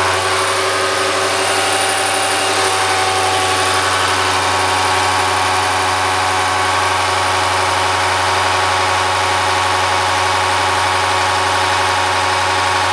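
Bosch diesel injection-pump test bench running a Bosch H-series inline injection pump on test, giving a loud, steady mechanical drone at an even pitch.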